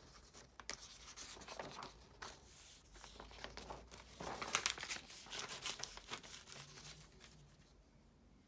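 Printed paper pages being handled and turned over by hand, rustling and crinkling in a run of uneven bursts, loudest a little after halfway.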